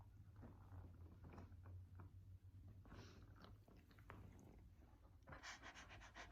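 Near silence: faint, scattered soft clicks and crunches over a low steady hum, with a quick run of ticks near the end.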